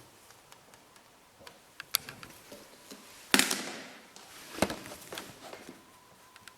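Bosch MAXX 6 front-loading washing machine during a wash: the drum tumbles wet laundry, with scattered clicks, slaps and splashes. Two sharp knocks stand out, the loudest about three and a half seconds in and another about a second later.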